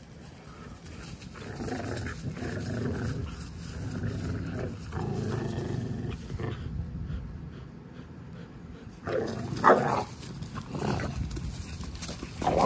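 Pit bull-type dogs growling as they tug back and forth on a rope toy, a low rumbling growl over several seconds. A louder, sharper dog outburst comes about ten seconds in.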